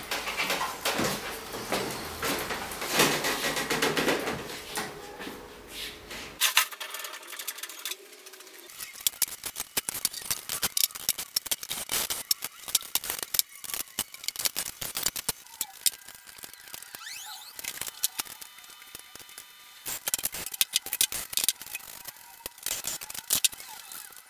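Hand tools and small metal parts clicking, clinking and knocking as a motorcycle is worked on: sporadic sharp ticks, busier at first.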